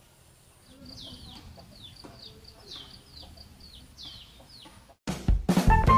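Chickens: chicks peeping in repeated short falling notes, with a few low clucks from a hen. About five seconds in, loud intro music with plucked notes starts abruptly.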